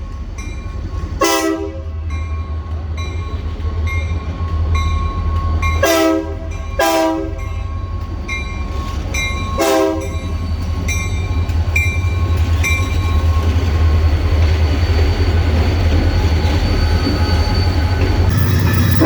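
Diesel locomotive drawing closer, its low engine rumble growing steadily louder, while it sounds four short horn blasts, two of them close together about six to seven seconds in. A thin high squeal comes and goes under the rumble.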